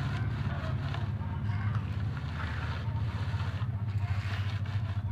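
A steady low rumble, with faint swishing strokes of a paint roller pushing thick, sandy texture paint across a board.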